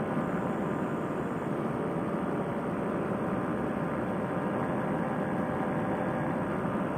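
Fresh Breeze Monster two-stroke paramotor engine and propeller running steadily at cruise power in flight, an even drone with no change in pitch.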